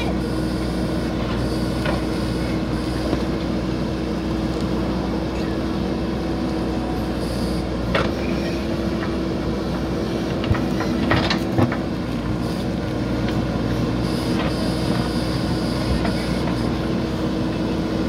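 JCB backhoe loader's diesel engine running steadily as the backhoe digs soil from a drain trench, with a few sharp knocks and clanks from the digging about eight seconds in and again around eleven seconds.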